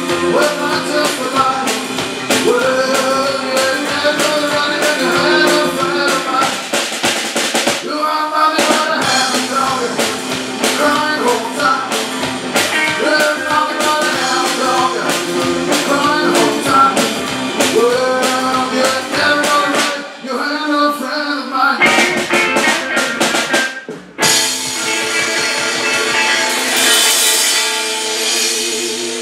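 Live rock and roll band: electric guitar over a drum kit with a busy snare beat. About twenty seconds in the playing breaks off twice, then a long chord is held with cymbals ringing.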